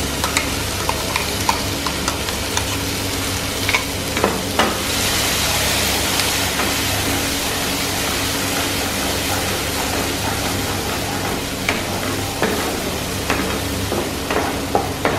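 A thick gravy paste sizzling as it fries in hot ghee in a non-stick pan. It is stirred with a wooden spatula that scrapes and taps against the pan now and then. The sizzle swells for a couple of seconds around the middle.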